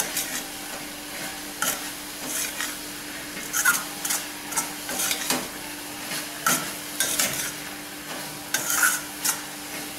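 Slotted metal spatula stirring and scraping a thick poha, jaggery-syrup and coconut filling around a stainless steel kadai, irregular scrapes against the pan over a steady sizzle as the sweet filling cooks down.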